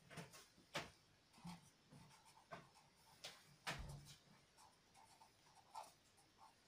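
Pen writing on paper: faint, irregular scratching strokes and light taps of the pen tip.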